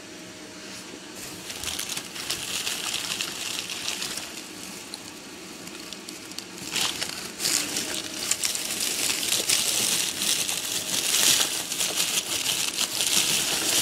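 Plastic candy bag and wrappers crinkling and rustling as a hand rummages through them. The crinkling comes in two stretches, with a short lull just after the middle, and is louder in the second.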